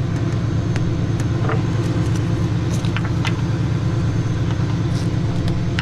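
Tow truck engine idling steadily with a low, even drone, and a few light clicks and clinks scattered through it.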